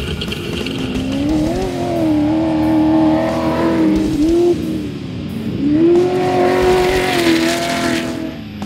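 Class 1 desert race car engine at high revs: it climbs and holds, eases off briefly about halfway through, then climbs and holds again before backing off near the end.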